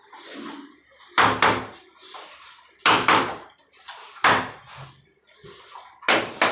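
A hammer striking a wooden door: about five sharp blows a second or more apart, each with a short ring, the first two close together.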